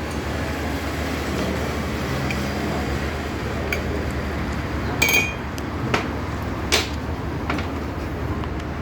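Metal motorcycle fork parts clinking and knocking as they are handled, with one ringing metal clink about five seconds in and a couple of sharper knocks after it, over a steady background hum.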